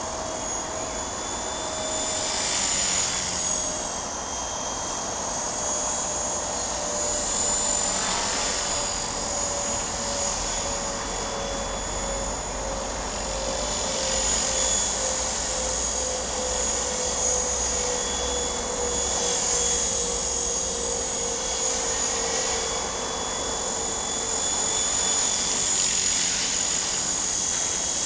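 Sonix SX 450 SE radio-controlled helicopter in flight, its rotor and drivetrain giving a steady high whine. The whine swells and fades every few seconds as the helicopter moves about, while a lower tone slowly drops in pitch.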